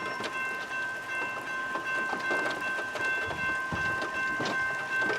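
Train passing, with a steady high-pitched tone held over the noise and clatter of the cars.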